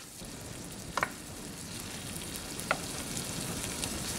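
Diced plum tomatoes and sliced garlic sizzling in melted butter in a sauté pan, stirred with a wooden spoon, as the tomatoes begin to soften and give up their water. Two brief clicks come through, about a second in and just before three seconds.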